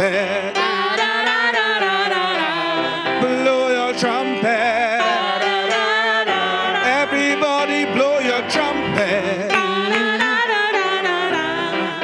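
Live gospel praise music: a group of singers leading a song over keyboard accompaniment, the voices holding wavering sung notes.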